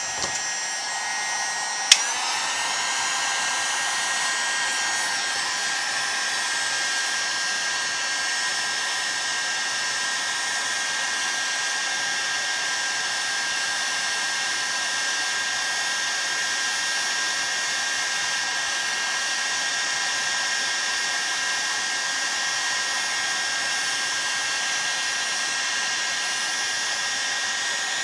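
Heat gun blowing steadily, a fan rush with a thin motor whine, as it heats the magnesium chainsaw crankcase around the bearing bore so the crank bearing can be fitted. There is a sharp click about two seconds in, after which the whine settles at a slightly different pitch.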